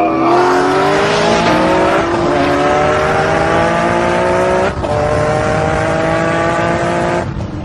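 A car engine at full throttle, its pitch climbing steadily under hard acceleration. It breaks briefly at an upshift about four and a half seconds in, climbs again, and falls away shortly before the end.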